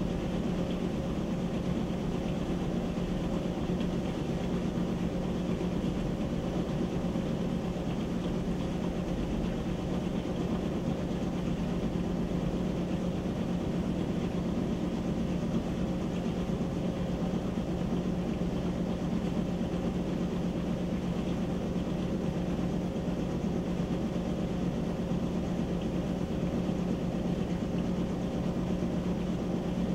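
Whirlpool WTW7300DW top-load washer in its spin cycle: the basket spinning wet clothes at a steady speed, with an even motor whir and a steady low hum.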